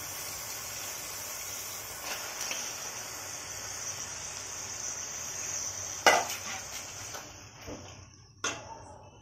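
Hot oil sizzling steadily in a metal pot of fried onions as raw chicken pieces go in, the sizzle dying away about seven seconds in. A spatula knocks sharply against the pot about six seconds in, the loudest sound, and again more softly near the end.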